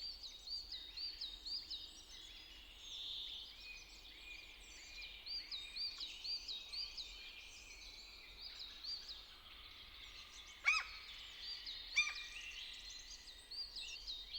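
Faint chorus of songbirds: many short chirping notes repeated over and over, with two louder, sharper calls a little over a second apart near the end.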